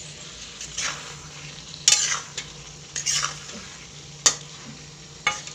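A metal spoon stirs and scrapes food frying in a metal wok, with about five scraping strokes over a steady sizzle.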